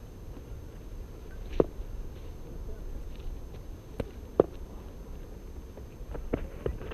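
Sharp knocks of a cricket ball in the nets. One comes about one and a half seconds in, two close together about four seconds in as the batter swings, and a few more near the end, over a steady low wind rumble on the microphone.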